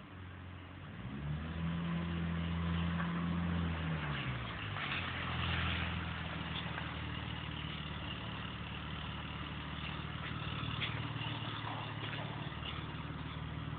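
A BMW's engine revs up about a second in and holds the higher revs for a couple of seconds. It drops back around four seconds in, then runs steadily at a lower speed.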